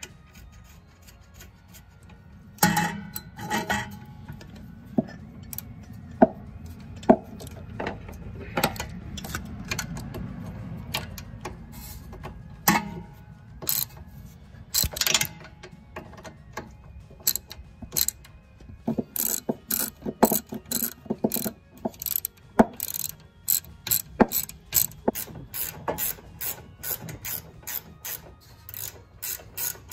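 Hand ratchet wrench working bolts on a car's rear suspension: a few scattered clicks and knocks at first, then from about halfway a steady run of quick ratchet clicks that speeds up to roughly four a second near the end.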